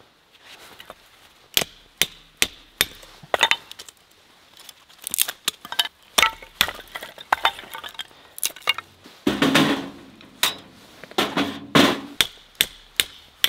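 Split firewood and kindling being broken small and laid into the firebox of a small stainless-steel wood-burning stove: irregular sharp wooden knocks and clatters with a few metallic clinks, the loudest flurry about two-thirds of the way through.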